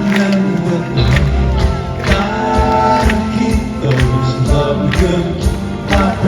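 Live pop band music with a steady drumbeat and sustained chords; the bass comes in about a second in.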